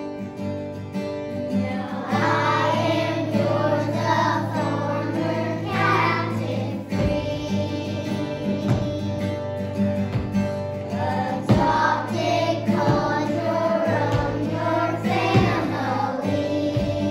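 A children's choir singing in unison over an instrumental backing, the voices coming in about two seconds in.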